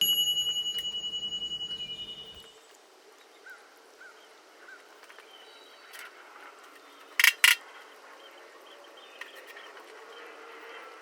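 A piece of metal struck once, ringing with a clear high tone that pulses and fades over about two seconds; about seven seconds in come two sharp knocks in quick succession.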